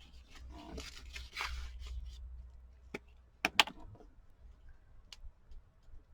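Paper rustling as cut-out paper pieces are handled and arranged, then a few sharp taps, the loudest two close together about three and a half seconds in.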